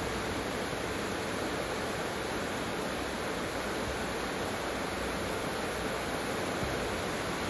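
Heavy tropical rain falling steadily, a dense, even hiss with no let-up.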